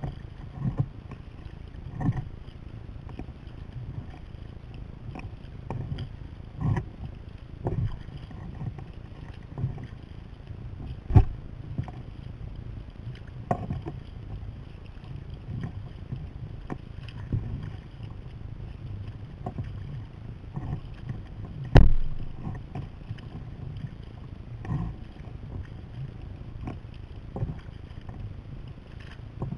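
Sea kayak under way: splashes from the paddle strokes and water slapping at the hull come every second or two over a steady low wind rumble on the microphone. Two sharp, louder knocks stand out, one about a third of the way through and one about two-thirds through.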